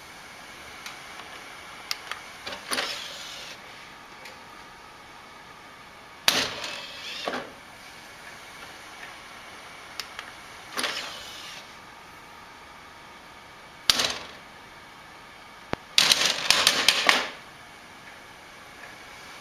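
Desktop computer's DVD drive clicking and whirring in several short bursts, about five times: the tray being ejected and closed.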